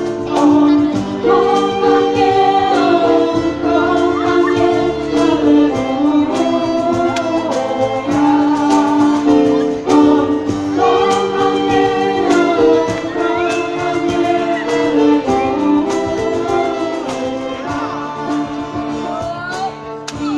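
Live women's vocal group singing a song into microphones, several voices together, with violin and acoustic guitar accompaniment.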